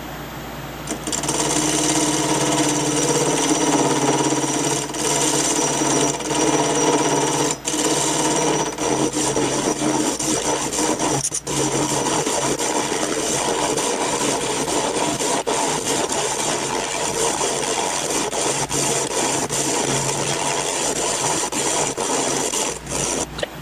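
Lathe spinning a tube while a carbide turning tool scrapes down its outside diameter: a harsh, steady scraping over the lathe's hum, starting about a second in with a few brief breaks and stopping near the end. The cut is slow going.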